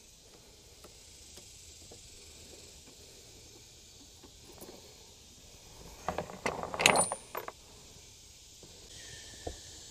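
Hand tools and small metal parts being handled at a golf cart carburetor: after a stretch of quiet, about six seconds in, a short cluster of light metallic clinks and rattles, the loudest with a brief high ring.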